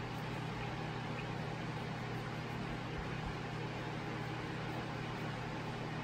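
Steady low hum with an even hiss over it, the running noise of a kitchen appliance or fan.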